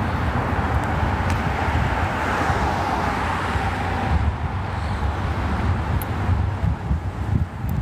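Road traffic noise, with a vehicle passing that swells up over the first few seconds and fades. Wind rumbles unevenly on the phone's microphone throughout.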